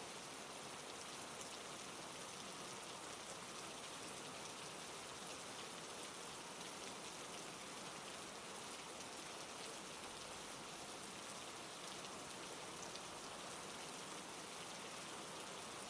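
Steady, faint rain falling, a constant even hiss without thunder.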